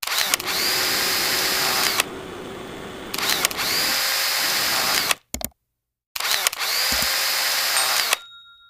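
Electric food chopper's motor whirring as its blades chop garlic in a glass bowl. It goes in three runs of about two seconds, each spinning up with a rising whine and then holding steady. There is a quieter stretch after the first run and a short break before the last, which fades out near the end.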